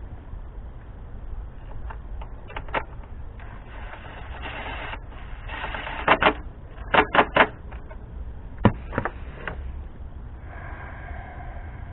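Clicks, rustling and a few sharp knocks of hand work in a V8 engine bay: the ignition coil pack for cylinder 5 being seated and its connector clipped on. The sharpest cluster of knocks comes a little past the middle, over a steady low rumble.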